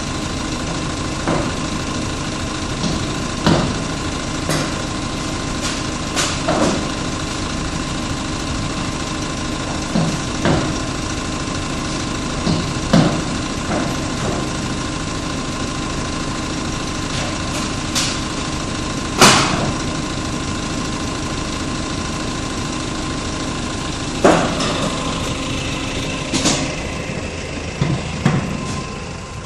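Forklift engine idling steadily, with sharp metal clanks and knocks every few seconds; the loudest clank comes about two-thirds of the way through.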